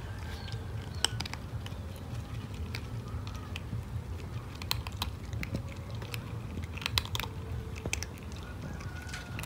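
A cat crunching dry kibble: irregular crisp crunches and clicks, over a steady low background rumble.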